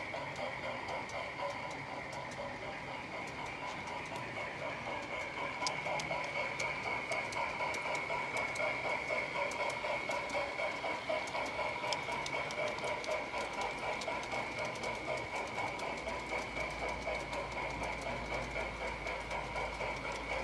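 Large-scale garden-railway model steam locomotive and its train running along the track, a steady whine with regular rhythmic clicking of the wheels over the rails, growing louder about five seconds in as it comes closer.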